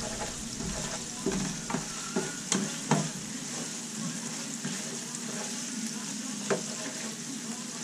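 Chili sizzling in a frying pan as a spatula stirs it, with a steady hiss. A few short scrapes and taps of the spatula against the pan come between about one and three seconds in, and one more near the end.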